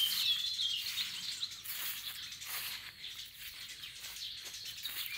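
Small birds chirping, busiest in the first second and then fainter, over a steady high hiss.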